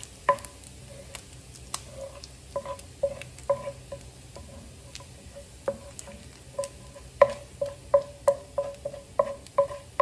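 Wooden spatula knocking and scraping against a metal frying pan as crisp bacon bits are pushed away from the rendered fat, each knock leaving a short ring from the pan. The knocks come irregularly and more often in the second half, over a faint sizzle of the hot bacon grease.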